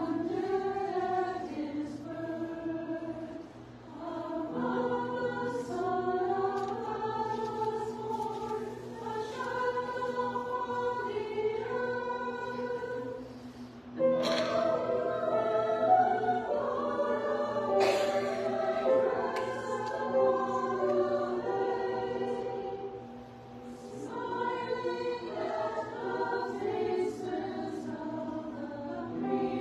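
Mixed church choir of men's and women's voices singing an anthem in parts. The singing is phrased, with short breaks about four seconds in, midway and about three quarters of the way through, and comes back in loudest after the midway break.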